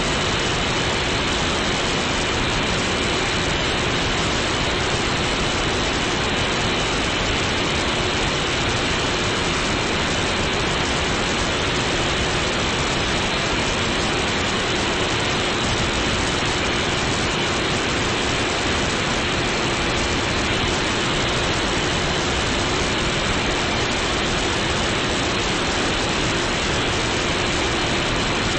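Steady radio static: an even FM receiver hiss with a few faint steady tones under it and no programme audio.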